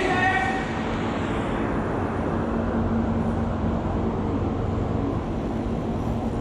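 Steady rumbling vehicle noise with a faint low hum; its higher hiss dies away over the first few seconds.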